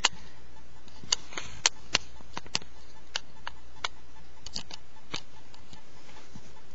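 Ferrets playing: scattered light clicks and taps at irregular intervals, most of them in the first five seconds, over a steady low hum.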